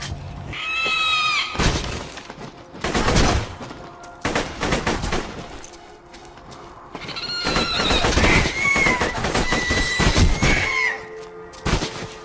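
Borderlands 2 game audio: gunfire and impacts again and again, with high-pitched creature screeches about half a second in and again from about seven to eleven seconds in.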